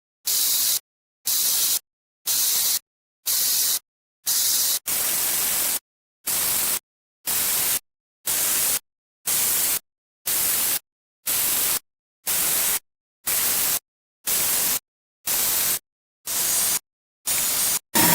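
Bursts of static hiss, about one a second, each switched on and cut off abruptly with dead silence between.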